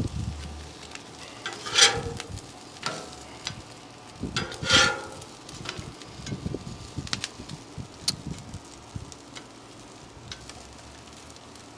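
Cheese-filled corn tortillas sizzling steadily on a Blackstone flat-top griddle. A metal spatula scrapes and clacks against the griddle as the tacos are flipped, loudest about two and five seconds in, with smaller taps between.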